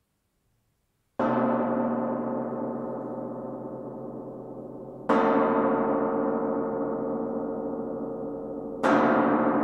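Large tamtam struck three times with a soft mallet, about every four seconds, each stroke at a different spot on the plate. Each strike rings on in a long, slowly fading wash of dense overtones with no definite pitch, the tone colour changing from stroke to stroke.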